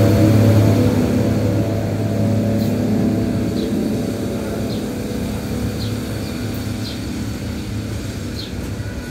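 Diesel express train pulling away, its engine hum fading slowly into the distance, with faint clicks about once a second.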